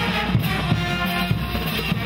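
Street brass band playing: held brass notes over steady bass drum beats.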